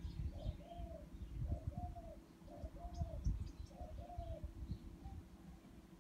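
A bird calling in a run of short notes, each rising then falling, mostly in pairs about a second apart, over a low rumble. A few faint high chirps come about halfway through.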